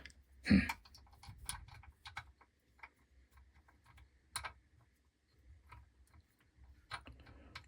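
Irregular clicks, taps and light knocks of small parts being handled and fitted while assembling a mini bench grinder, with one louder knock about half a second in.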